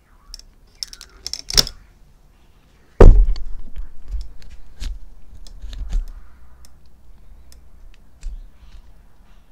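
Scattered clicks and light knocking, then a sudden loud thump about three seconds in that fades out slowly over several seconds, with more small clicks through it: the phone filming being picked up and handled.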